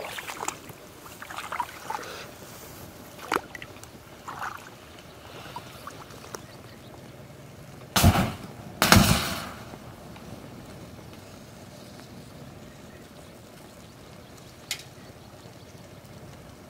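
Disposable plastic butane lighters burning in a fire, crackling and popping, then two loud bursts about eight and nine seconds in as lighters rupture and their gas flares up with a rush. One more sharp pop near the end.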